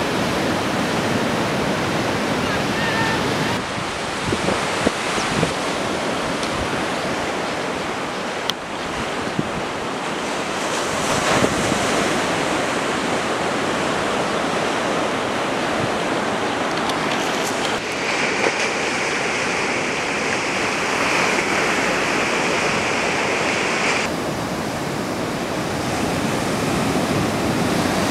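Ocean surf breaking, a steady rushing noise with wind on the microphone.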